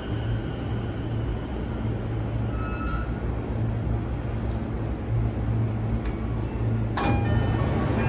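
Subway train's interior hum as it draws up to the platform. About seven seconds in, a sudden clunk as the sliding doors open, followed by a few short tones.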